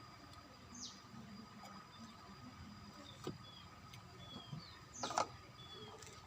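Faint bird chirps, a few short high calls that glide down, over quiet background noise. A brief louder sound comes about five seconds in.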